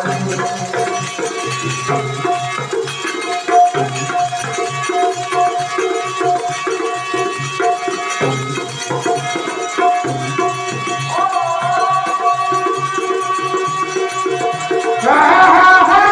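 Instrumental interlude of a Rajasthani nirgun bhajan: a harmonium holds a melody over a steady dholak rhythm, with wooden khartal clappers and small hand cymbals. Near the end a louder, higher melody comes in.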